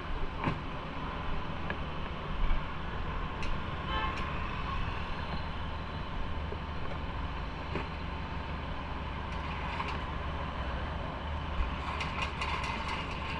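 Motorcycle riding along at steady speed: the engine runs evenly under a constant rush of wind and road noise, with a few faint clicks and a short cluster of them near the end.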